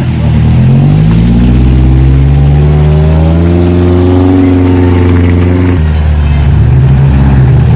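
Off-road vehicle's engine working under load, its pitch climbing slowly over several seconds, then dropping suddenly about six seconds in to lower, steady running.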